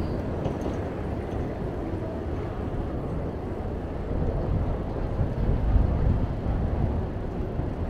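Steady low rumble of city street traffic heard from a moving bicycle, with wind buffeting the microphone.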